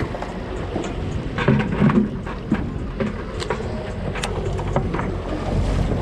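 Boat engine running steadily under way, with wind and water noise, and a few sharp knocks and clatters on deck, the loudest about one and a half to two seconds in.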